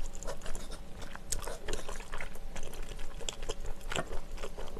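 A person chewing a mouthful of chewy glass noodles and seafood in rosé sauce: many small, wet mouth clicks and smacks.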